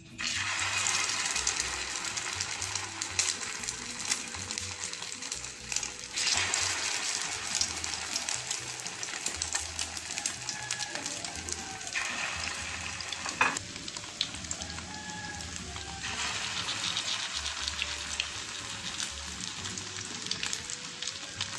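Egg-dipped shami kebabs sizzling in shallow oil in a frying pan, a steady hiss with fine crackling spatters. Faint background music runs underneath.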